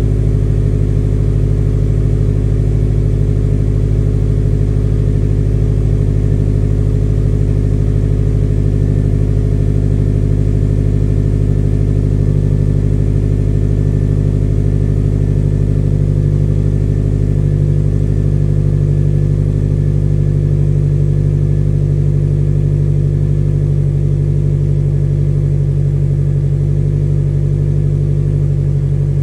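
Subaru STI's turbocharged flat-four engine idling steadily.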